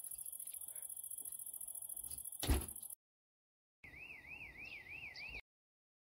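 Crickets chirping steadily, broken about two and a half seconds in by a single loud thud like a door shutting. After a short silence comes a high wavering tone that rises and falls about three times a second for a second and a half, then it cuts off.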